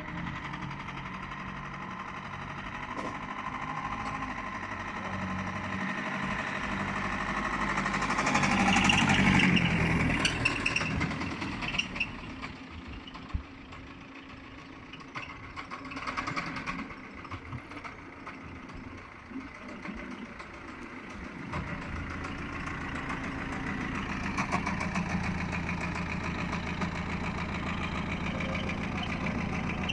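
BMW E46 320d's four-cylinder diesel engine running, swelling loudest about nine seconds in and then easing. It is the car that makes a weird knocking and squeaking noise, but no distinct knock or squeak can be singled out.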